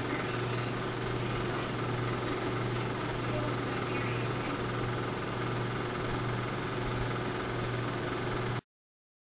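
Steady low hum with an even hiss, unchanging, then cut off abruptly near the end.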